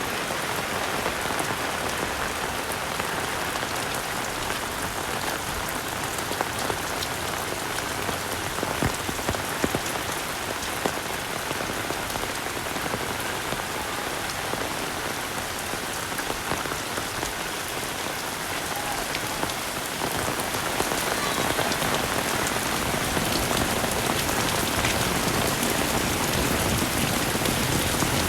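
Heavy rain falling steadily, with many separate drops striking close by. It grows louder about twenty seconds in.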